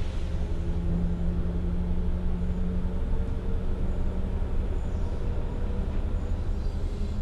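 Docklands Light Railway train running: a steady low rumble with a low hum through it.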